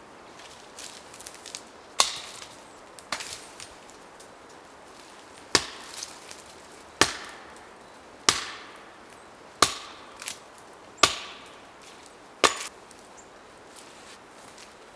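Hatchet chopping into wood with overhead swings: eight sharp strikes roughly one and a half seconds apart, starting about two seconds in, each with a short ring after it.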